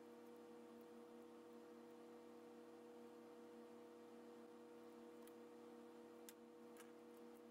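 Near silence: a faint steady hum, with a few faint clicks in the last couple of seconds.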